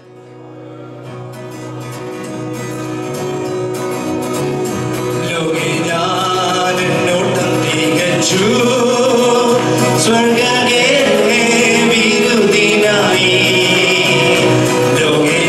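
Live church worship band and singers performing a Malayalam Christian worship song. The music fades in over the first several seconds, and voices singing grow clear about a third of the way in.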